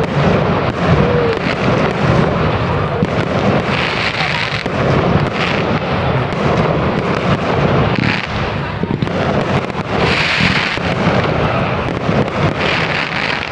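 Large fireworks display going off continuously: a rolling rumble of deep bangs with sharp cracks, and a fizzing crackle that swells up every couple of seconds as crackling shells burst.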